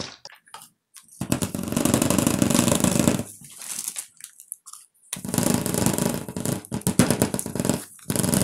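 A handheld vibrating device buzzing and rattling against a plastic tub of freshly poured plaster of Paris, shaking the air bubbles out of the wet plaster. It runs in two stretches: from about a second in to about three seconds, and again from about five seconds in to near the end.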